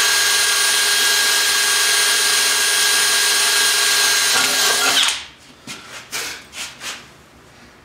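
Cordless drill running steadily at speed, boring a small pilot hole into a steel bracket, then stopping about five seconds in, followed by a few light clinks and knocks.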